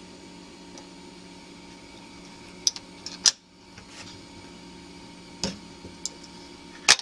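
Steady electrical hum of room tone, broken by half a dozen sharp clicks, the loudest about a third of the way in and right at the end, with the background cutting out briefly after each of those two.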